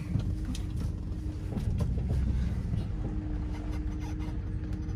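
A 2007 Dodge Ram 1500 pickup's 5.7 L Hemi V8 running as the truck drives slowly in four-wheel drive, with a steady low rumble and scattered light clicks. A steady hum comes in about three seconds in.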